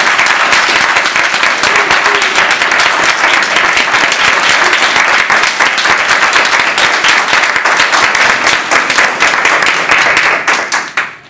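Classroom audience applauding, with the claps thinning out and dying away near the end.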